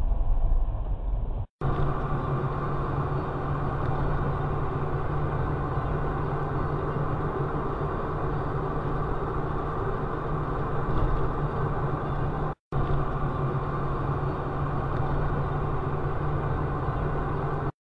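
Steady engine drone and road noise from inside a moving vehicle, recorded by a dashcam, with a low hum that holds one pitch. The sound cuts out briefly about a second and a half in and again about twelve and a half seconds in.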